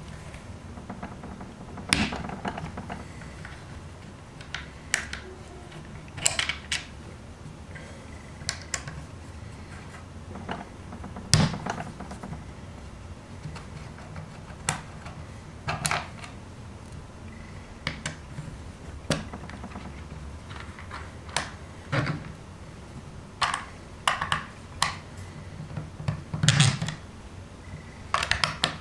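Irregular sharp clicks and taps of small screws and the plastic shell of a Tippmann TiPX paintball pistol being handled on a tabletop during disassembly. There is a louder knock about eleven seconds in and a cluster of taps near the end.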